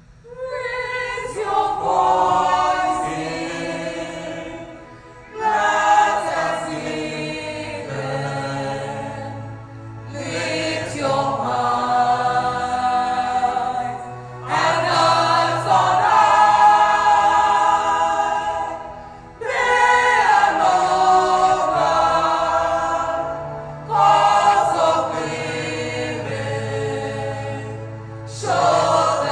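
Women's choir singing in phrases, each one starting strongly about every five seconds, with low held bass notes underneath.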